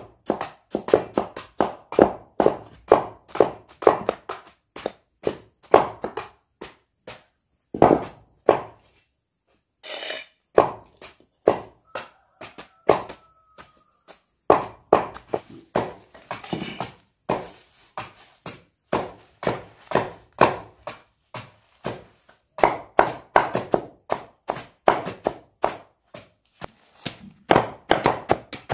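A blade chopping with heavy strokes, each a sharp thunk, in runs of about two to three strokes a second with short pauses between runs.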